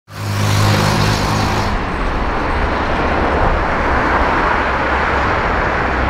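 Steady roar of jet airliner engines, with a low hum through the first couple of seconds; the high hiss cuts off abruptly a little under two seconds in while the roar carries on.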